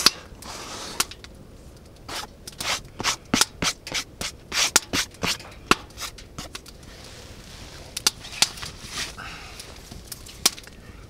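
Hands handling utensils and food: rustling and rubbing with a run of sharp clicks and taps between about two and six seconds in, and a few more near the end.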